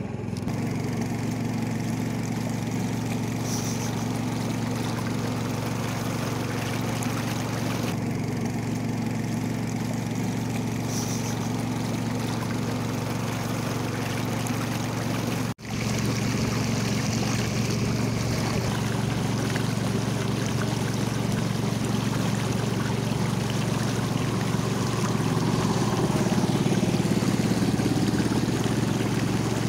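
Small motorboat's engine running steadily at cruising speed, with water rushing along the hull. The sound cuts out for a moment about halfway through, then resumes.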